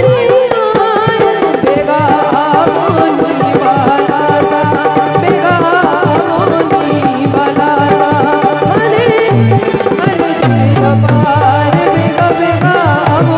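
A woman singing a Hindi devotional bhajan through a microphone and PA, her voice wavering and ornamented, over a hand drum keeping a steady beat.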